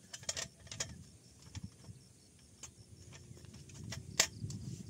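A scattered series of light, sharp clicks and clinks at irregular intervals, the loudest about four seconds in, over a faint low rumble.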